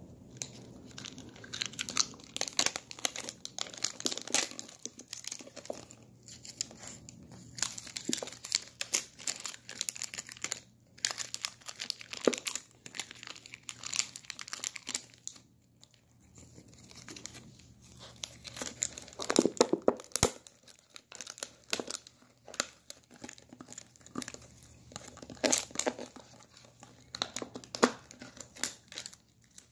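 A puppy chewing and tugging at the torn plastic shrink-wrap label of a plastic protein-shake bottle: irregular crinkling and tearing of thin plastic, coming in bouts with short pauses.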